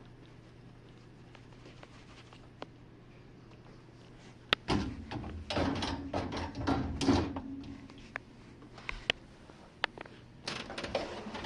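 Jenn-Air dishwasher handled after its Quick Wash cycle: a sharp latch-like click, then a few seconds of rattling, sliding clatter as the door or racks are moved, with scattered clicks and a second short clatter near the end, over a steady low hum.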